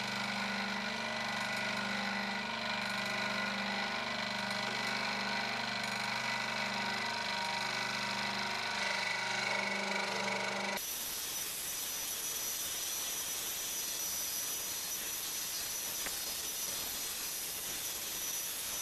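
Proxxon electric scroll saw running and cutting through 9 mm plywood, a steady hum with several tones. About eleven seconds in the sound changes abruptly to a steadier, hissier buzz.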